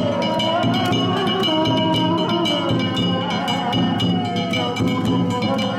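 Danjiri festival percussion: drums and metal strikes beaten in a fast, even rhythm, with a steady ringing tone over it and wavering pitched sounds beneath.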